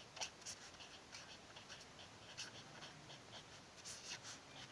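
Pen scratching on paper as a line of text is written by hand: faint, irregular short strokes.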